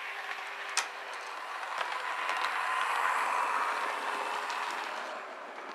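Model Class 66 diesel locomotive running along the track: its motor whirs and its wheels roll on the rails. The sound grows louder as it passes close by about three seconds in, then fades, with one sharp click about a second in.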